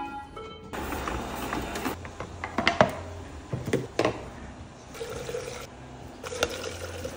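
Water running into a plastic shaker bottle, a steady hiss that stops and starts, with a few sharp clicks and knocks of plastic bottles and tubs. A brief run of electronic tones plays at the very start.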